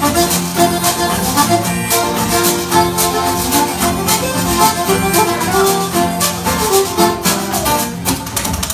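Irish traditional tune played live on a button accordion, with acoustic guitar and a washboard keeping a steady beat.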